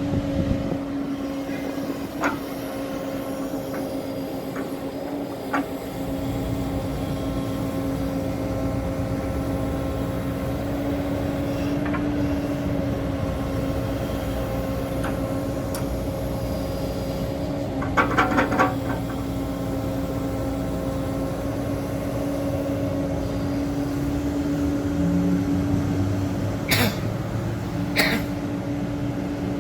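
Diesel engine of a CAT 307 amphibious swamp excavator running steadily with a constant hum. A few metallic knocks occur: a quick rattle of knocks about two-thirds of the way in and two sharp knocks near the end.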